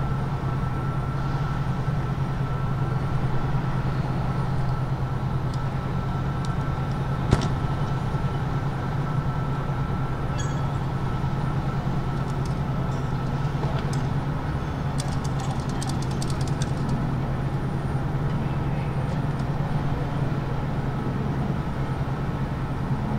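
Machinery running steadily, a low drone with a faint steady whine above it. Light metallic clicks of rotor blade attachment hardware being fitted: one sharp click about seven seconds in, and a short run of clicks a little past the middle.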